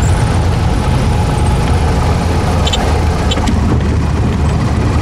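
Cessna 172's engine and propeller running steadily, heard from inside the cabin as a loud, even drone with a low hum. There are a couple of faint clicks about halfway through.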